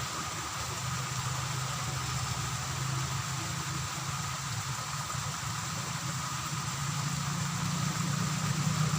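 A steady low engine hum, unchanging throughout, with a faint constant high whine above it.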